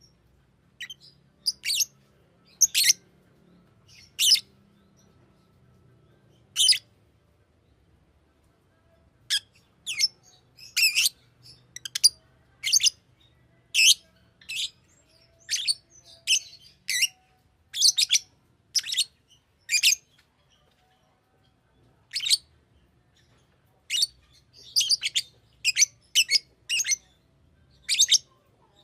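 Fischer's lovebird giving short, sharp, high-pitched chirps, some single and some in quick runs, with pauses of a few seconds between bouts.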